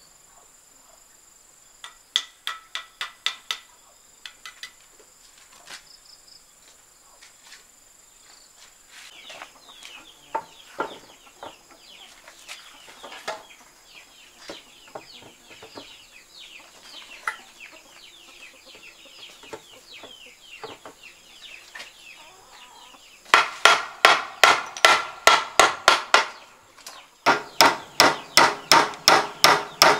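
A hammer striking a wooden board in rapid, loud blows, about four a second, from a little past two-thirds of the way through, with a brief pause before they resume. Earlier there is a short run of sharp taps, then chickens clucking in the background.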